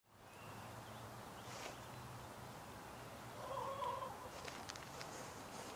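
Quiet farmyard ambience of a backyard chicken flock, with one drawn-out animal call about three and a half seconds in, followed by a few light ticks.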